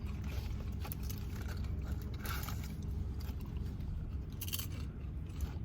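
Crunchy chewing and biting of tortilla chips from nachos, with scattered crackling crunches over a steady low hum.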